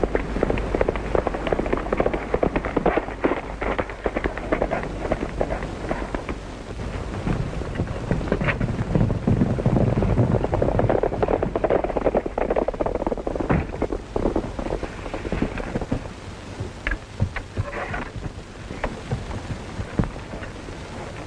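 Rapid clatter of galloping horses' hooves, dense for the first several seconds, with a low rumble about nine seconds in, then thinning to scattered sharp hits, over the hiss of an old film soundtrack.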